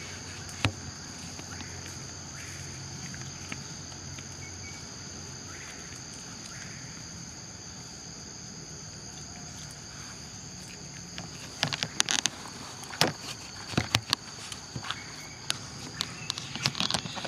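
Steady, high-pitched insect drone. From about two-thirds of the way in, a run of sharp clicks and crackles comes over it.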